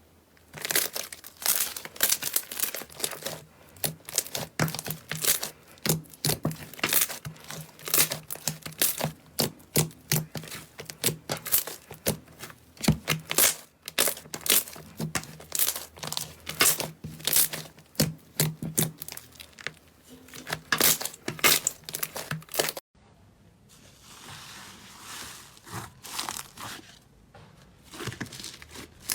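Slime being squeezed and stretched by hand, giving a dense run of sharp crackling pops and clicks. About three-quarters of the way through it cuts to a softer, hissing squish, and the crackling comes back near the end.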